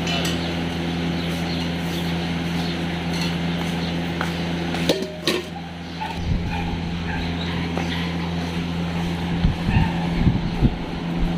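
A steady low mechanical hum runs throughout. Over it come a couple of sharp clicks about five seconds in and scattered low thumps in the second half.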